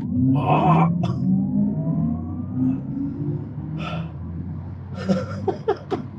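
Audi e-tron GT's dual electric motors whining and rising in pitch under full acceleration over a steady low road rumble inside the cabin. A few short gasps and outbursts from the occupant break in near the start and again a little past halfway.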